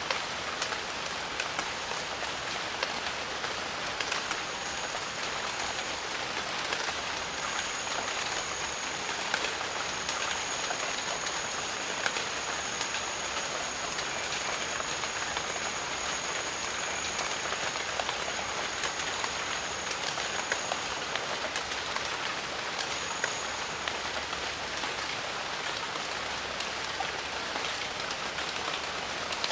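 Steady rain: an even hiss with scattered louder drops. A thin, high, steady tone sounds over it through the middle stretch and stops before the end.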